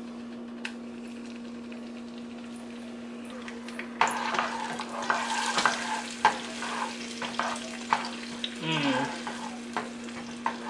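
Butter, olive oil and minced garlic sizzling in a nonstick frying pan. From about four seconds in, a utensil stirs and scrapes the pan in quick, irregular strokes over the sizzle.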